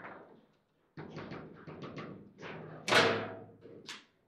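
Table football play: the ball and the plastic rod men knock and clack in a quick, irregular run. The loudest is a sharp, ringing hit about three seconds in, and another sharp knock comes just before the end.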